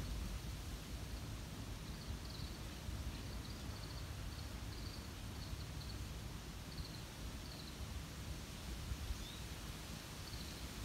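Outdoor ambience: a steady low rumble with faint, short, high chirps repeating irregularly through it.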